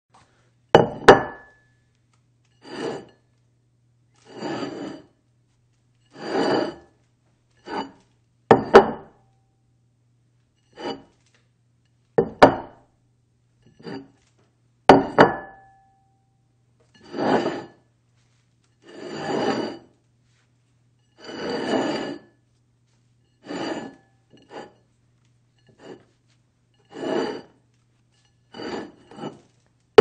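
A dish slid across a table again and again, with short scraping slides every second or two. Several sharp knocks are mixed in, a few of them leaving a brief ringing tone.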